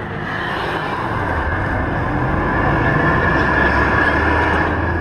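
Off-road 4x4 engine running close by, a steady low hum under a rushing noise that builds over the first second or two and then holds steady.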